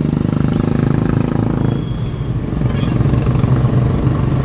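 Car engine and road noise heard from inside the cabin while driving at speed, a steady hum that eases briefly about two seconds in and then picks up again.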